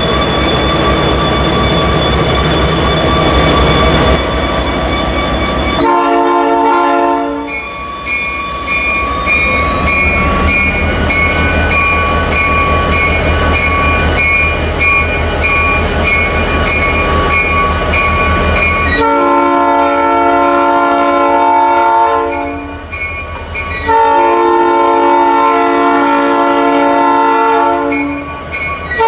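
Multi-chime train horn sounding several blasts over a locomotive's steady low rumble: a short blast about six seconds in, then long blasts starting around 19 and 24 seconds, and another near the end.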